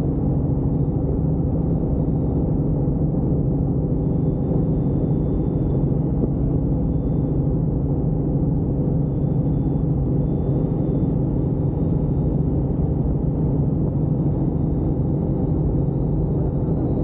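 Helicopter in flight: a steady low drone of engine and rotor.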